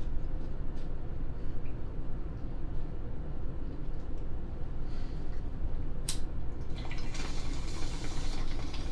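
A steady low hum, then a sharp click about six seconds in, followed by a second or two of watery, liquid noise.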